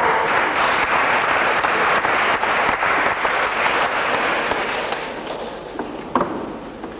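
Audience applauding, a dense patter of many hands clapping that dies away over the last couple of seconds. One brief sharp knock stands out about six seconds in.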